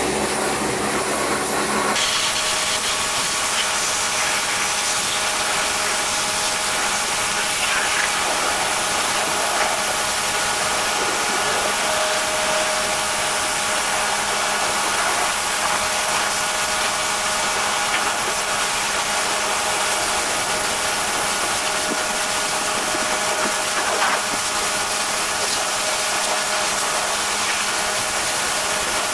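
Pressure washer running steadily: a constant hiss of spray over a steady motor hum, with the sound changing about two seconds in.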